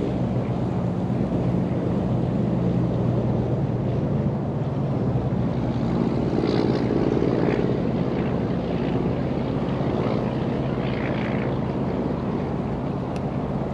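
A steady engine drone, holding one even pitch with several humming tones throughout.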